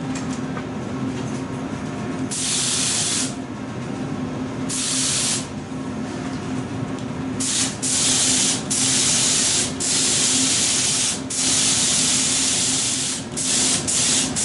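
HVLP gravity-feed spray gun spraying gelcoat: bursts of air hiss as the trigger is pulled, two short bursts of about a second each, then longer passes from about seven seconds in, broken by brief pauses. A steady low hum runs underneath.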